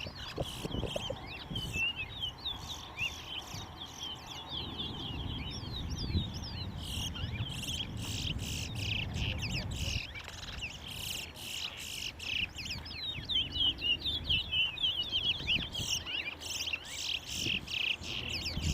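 Caged towa-towa seed finches singing in competition: fast, continuous chirping and twittering song with notes packed closely together throughout, over a low background rumble.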